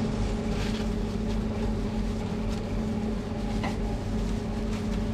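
Steady machine hum with a held low tone, and a few faint taps and rustles as bread is handled on paper.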